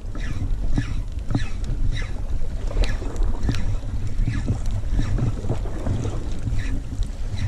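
Wind buffeting the microphone, a steady low rumble, with short irregular crackles about once a second.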